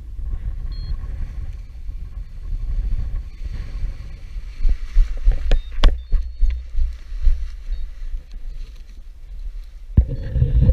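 Strong gusting wind buffeting the microphone, a rough low rumble that swells and falls, with a few sharp clicks or knocks about halfway through and a stronger gust near the end.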